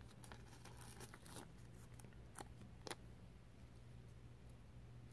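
Faint paper handling: a sticker peeled from a sticker sheet and pressed onto a paper booklet, a few soft clicks and rustles in the first few seconds over a low steady hum.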